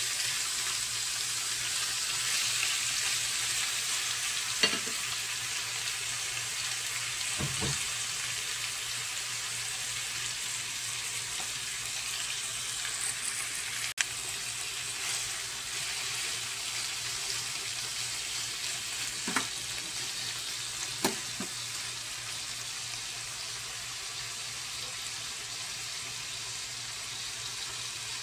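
Pork belly slices frying in a pan with onions and garlic: a steady sizzle that eases slightly as the meat cools the pan, with a few short sharp knocks scattered through it.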